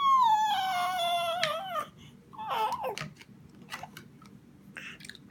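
A seven-and-a-half-month-old baby's high-pitched happy squeal, held for nearly two seconds and sliding down in pitch, followed by a short falling coo and a few faint babbling sounds.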